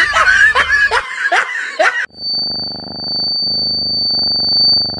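People laughing, with short falling vocal cries, for about two seconds. Then it cuts to a cat purring into a handheld microphone: a steady pulsing rumble with a thin, steady high-pitched tone above it.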